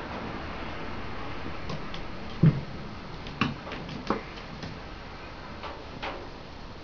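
A cat's paws knocking and tapping against a mirror and its wooden stand: a few separate bumps, the heaviest about two and a half seconds in.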